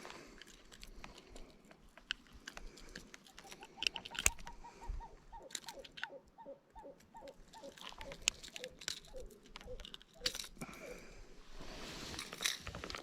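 Close handling noise, scattered clicks, taps and crunchy rustles. From about three to ten seconds in, a quick run of short, evenly spaced notes at about four a second sits behind it.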